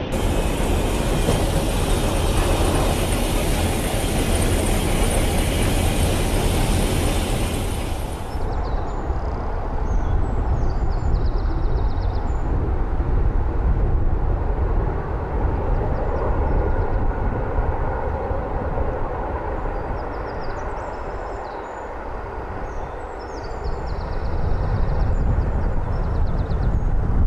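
LNER V2 three-cylinder 2-6-2 steam locomotive 4771 'Green Arrow' running with its train, a steady din of exhaust and wheels on the rails. The high hiss drops away abruptly about eight seconds in, and the sound dips briefly and then swells again near the end.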